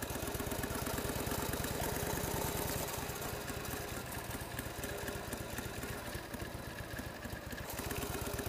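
Custom Harley-Davidson big-twin chopper's V-twin engine running steadily as the bike is ridden slowly, an even beat of firing pulses.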